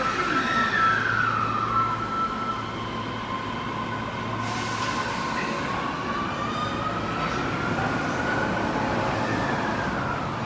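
Osaka Metro 30000 series subway train pulling out of the station. A steady high tone sounds for the first few seconds, then the motors' whine rises in pitch as the train gathers speed, over the growing noise of the wheels on the rails.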